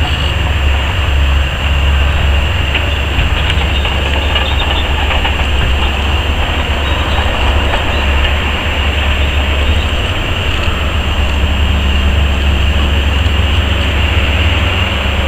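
Heavy diesel machinery running steadily: a Caterpillar 385 hydraulic excavator working as it digs and loads a Caterpillar haul truck. It is a deep, even rumble with a hiss above it.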